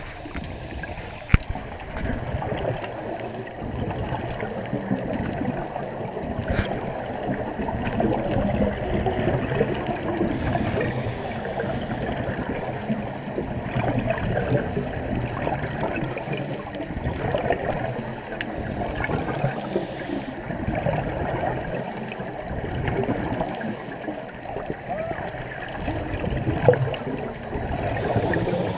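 Muffled underwater gurgling and bubbling from scuba divers' exhaled air and regulators, running on without pause, with a sharp click about a second in and another near the end.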